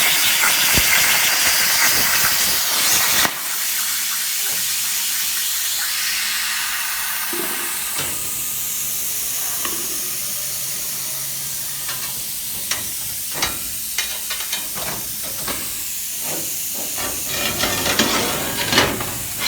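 CNC plasma torch cutting steel with a loud, steady hiss that stops abruptly about three seconds in, leaving a quieter air hiss that slowly tails off. Scattered sharp clicks and knocks follow, coming more often near the end.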